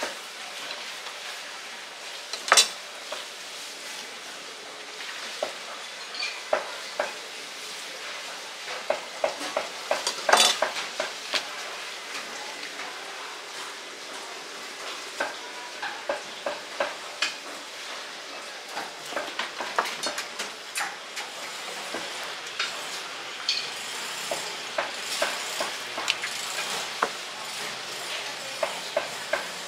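Butcher's knife working through a pig carcass on a wooden block: wet slicing and scraping along flesh and ribs, with many small irregular clicks of the blade on bone and board. Two sharper knocks stand out, one a few seconds in and one about ten seconds in.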